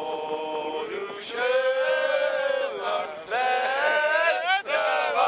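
Male voice singing a song in long held notes, with brief breaks between phrases.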